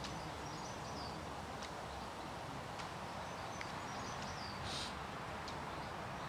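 Steady outdoor background noise with small birds chirping briefly now and then, and a short hiss about three-quarters of the way through.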